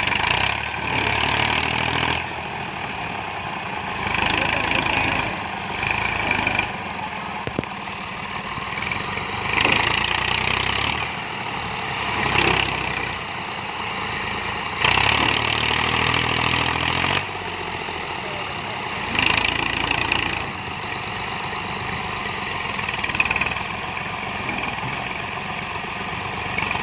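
Massey Ferguson 240's three-cylinder diesel engine revved hard in repeated surges of a second or two, dropping back between them, as the tractor strains to pull a sand-loaded trolley out of deep sand with its wheels slipping.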